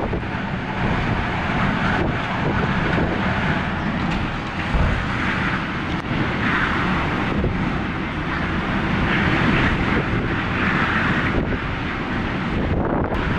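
Strong hurricane winds gusting, swelling and easing, with wind buffeting the microphone in a heavy low rumble.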